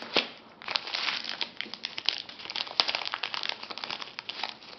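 Small clear plastic bag of replacement stylus nibs crinkling and crackling as it is handled, a rapid, continuous rustle that starts about half a second in.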